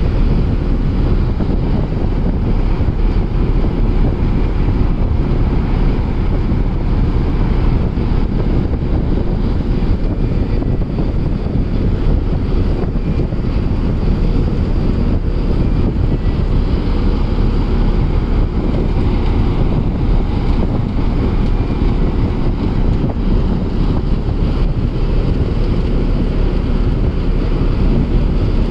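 Steady wind buffeting the microphone over an even, low rumble of ferry engines.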